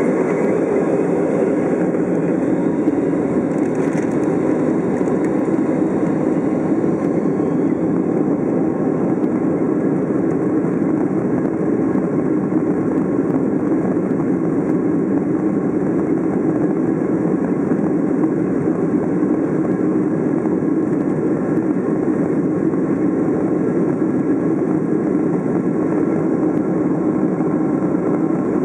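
Steady drone of a British Airways Boeing 767's Rolls-Royce RB211 engines and airflow, heard inside the passenger cabin.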